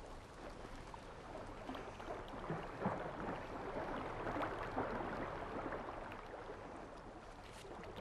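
Faint outdoor background noise: a low, even hiss with scattered soft rustles and ticks, a little louder in the middle.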